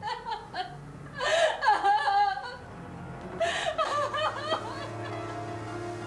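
A frightened woman sobbing in gasping, wavering cries, twice. About four seconds in, a low sustained music chord comes in.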